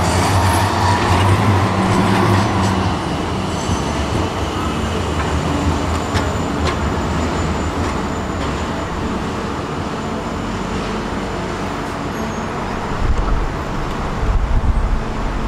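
Tram running along the track: a steady rumble of wheels on rails with the electric motor's hum and a few light clicks, and some heavier low thumps near the end.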